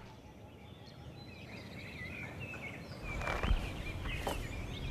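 Garden ambience: small birds chirping in short wavering calls over a faint background hush, with a low rumble coming up about three seconds in and two brief rustles near the end.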